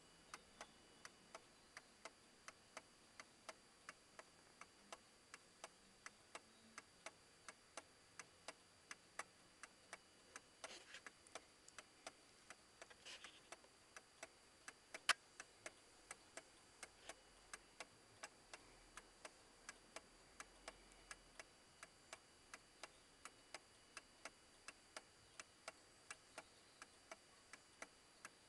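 A mechanical pendulum clock's brass movement ticking steadily, a little over two ticks a second. One sharp, louder click comes about halfway through.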